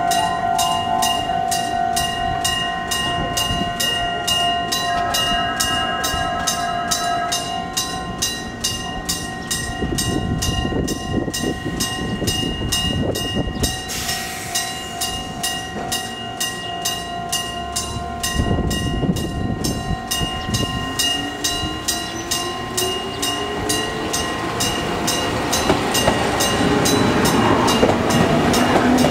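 Electric-bell (denrei-type) railway level-crossing warning bell ringing continuously in rapid, even strokes, about two and a half a second, with a second crossing's bell overlapping. A train runs through with a rumble, and from about twenty seconds in an electric train's motor whine climbs in pitch as it accelerates, growing louder toward the end.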